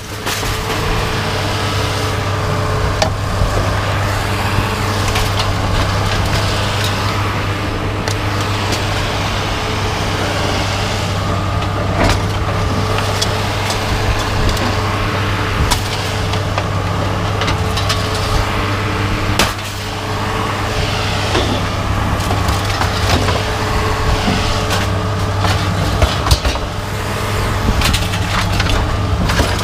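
An engine hums steadily throughout, with scattered knocks, cracks and clatter of scrap being handled and unloaded.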